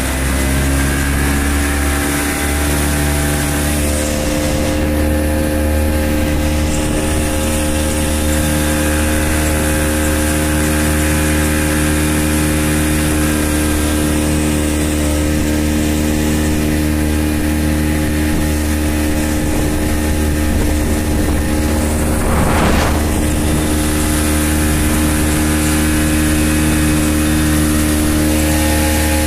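Motorboat engine running steadily at cruising speed, its pitch rising slightly in the first couple of seconds and then holding, with water rushing along the hull. About 22 seconds in there is a brief rush of noise.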